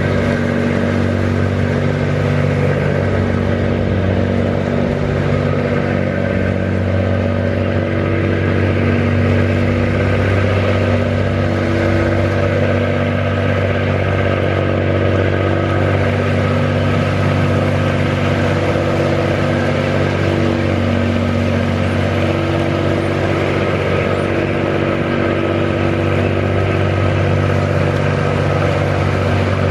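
Diesel engines of a mussel-farm work boat running steadily under way, a constant hum holding several tones at once.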